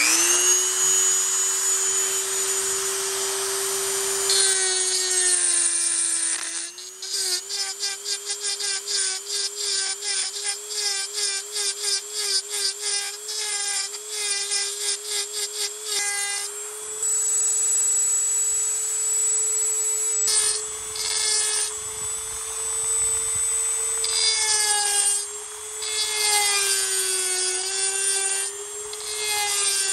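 Dremel rotary tool with a carbide bit running at high speed and grinding out the metal of an exhaust flange opening, a steady high whine that wavers slightly. Through the middle and again near the end the bit chatters against the metal as it cuts. This is port matching: enlarging the flange opening to match the cylinder's exhaust port.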